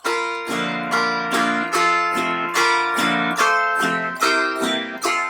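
Autoharp strumming chords in a steady bouncy blues rhythm, about two to three strokes a second, as the instrumental intro with no singing.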